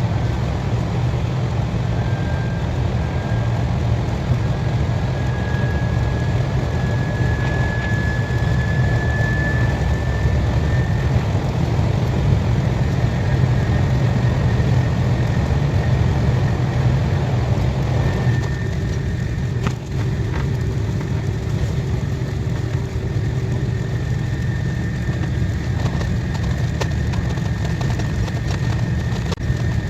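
KTX high-speed train running at speed: a steady low rumble under a broad rushing hiss, with a faint whine that rises slowly over the first several seconds. About two-thirds of the way through, the middle of the sound thins out and the rumble carries on.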